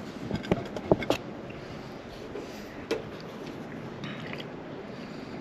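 Hands working a plastic bottle of wet potting soil: a quick cluster of clicks and knocks in the first second, one more knock about three seconds in, then soft, even noise.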